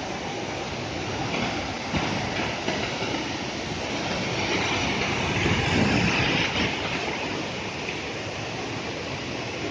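Steady rush of falling water from a waterfall, swelling a little in the middle.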